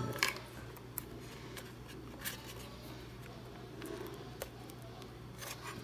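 Light clicks and scrapes of a plastic lens adapter base being worked by hand into an Oculus Quest 2 headset's lens opening, over a steady low hum.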